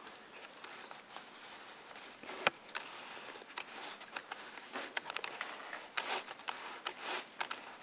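Light clicks, taps and rustles of close handling in a small room: one sharp click about two and a half seconds in, then a busier cluster of short scuffs and clicks in the second half.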